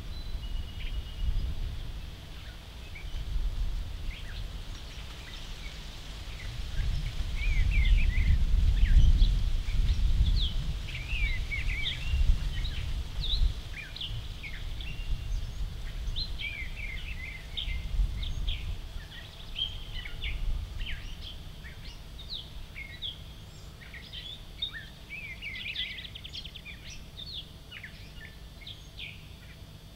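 Wind buffeting the microphone as an uneven low rumble that swells strongest around eight to twelve seconds in, over many songbirds giving short chirps and calls, busier in the second half.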